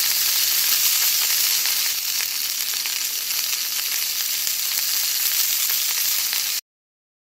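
Sizzling and crackling of food frying on a hot grill, a sound effect standing in for squid grilling on the stall; it cuts off suddenly near the end.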